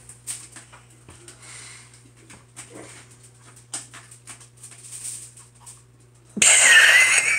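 Tin foil on a kitchen counter crinkling in light scattered crackles as a cat steps and sniffs on it, then about six seconds in a loud burst of crackling lasting about a second, with a high wavering whine in it.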